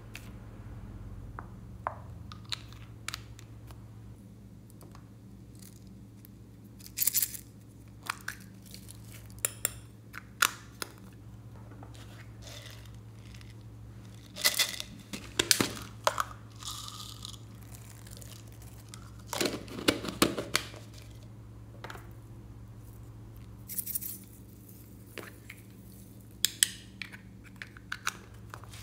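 Scattered clicks, taps and short rustling clatters of small plastic toy-shaped containers and a squeeze tube being handled and opened over a glass dish, with a few louder clusters along the way. A steady low hum runs underneath.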